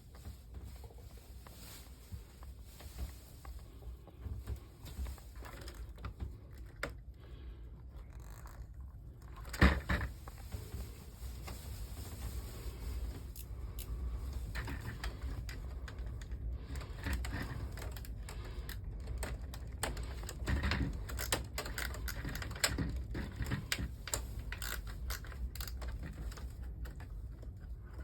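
Plastic parts of a wall-mounted air conditioner being handled, with scattered clicks, scrapes and knocks and one sharp loud knock about ten seconds in.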